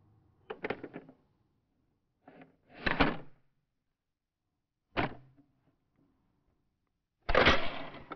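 Metal clicks and clacks of a semi-automatic AR-15 rifle being handled after firing, in four or five separate bursts with pauses between them, the loudest and longest about seven seconds in.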